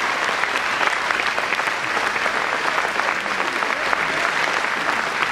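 Large audience applauding steadily, a dense, even clatter of many hands clapping.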